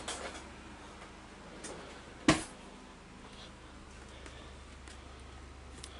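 A single sharp knock about two seconds in, with a few faint clicks and handling sounds around it.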